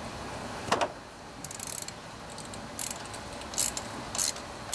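Ratchet wrench clicking in short bursts as a 5/8-inch socket turns out a spark plug. There is one sharper knock just under a second in.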